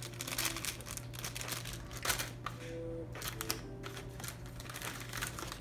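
Plastic snack wrappers crinkling and rustling as they are handled, in a run of short irregular crackles.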